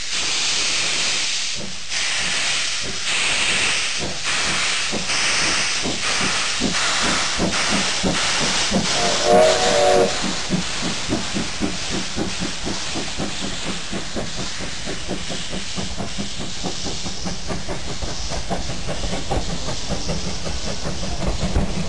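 Two steam locomotives, a C11 and a C12 running double-headed, hissing steam with exhaust chuffs that start slow and quicken as the train gets under way. A short steam whistle blast sounds about nine seconds in, and a low rumble of the train builds near the end.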